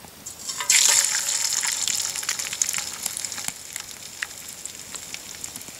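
Raw deer organ meat laid into a skillet of hot oil, sizzling about a second in: loud at first, then fading to a steadier frying hiss with scattered pops.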